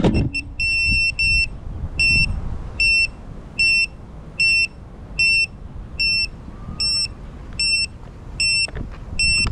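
FPV racing drone's buzzer sounding a short high-pitched beep about once every 0.8 s. The quad is down on the pavement with its motors stopped, and this is the lost-model beeper signalling where it lies. Its motor whine drops and cuts out right at the start.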